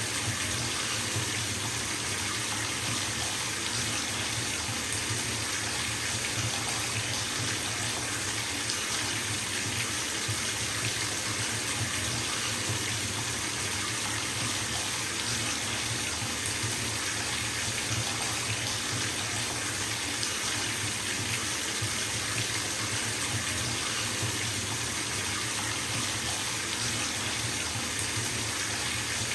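Bathtub filling from its tap: a steady, unbroken rush of running water splashing into the tub.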